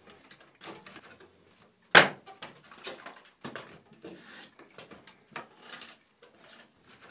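Draw knife shaving a wooden shingle clamped in a shave horse: a series of short scraping strokes, roughly one or two a second, with one sharp knock about two seconds in.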